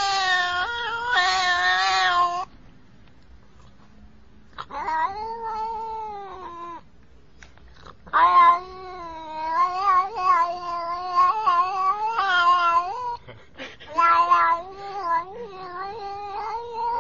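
Domestic cat yowling in a series of long, drawn-out calls whose pitch wavers up and down, one of them lasting about five seconds, with short pauses in between: the chatty, talking-like vocalizing of a vocal cat.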